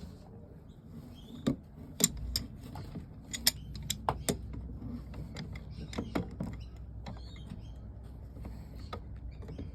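Scattered sharp clicks and light knocks of metal parts and cables being handled while wiring a winch, most of them in the first two-thirds, over a low steady hum.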